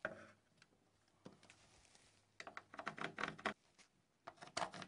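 Faint scratching and light knocks of a pencil and level against a wall as small guide marks are made, in short bursts with the busiest stretch past the middle.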